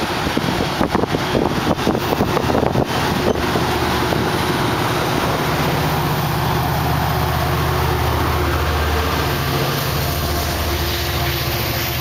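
Amtrak Pacific Surfliner passenger train running past, with irregular clicks and knocks for the first few seconds. About five seconds in, the steady low hum of its diesel locomotive takes over as it goes by.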